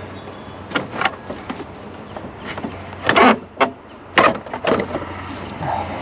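Irregular hard plastic knocks, clunks and scrapes as a cooling fan and its plastic shroud are worked loose and handled in a car's engine bay. The loudest run of knocks comes about three seconds in.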